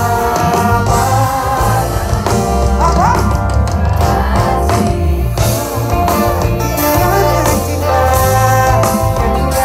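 Live pop music from a festival stage heard from the audience: a singer over a full band with drums, bass and guitar.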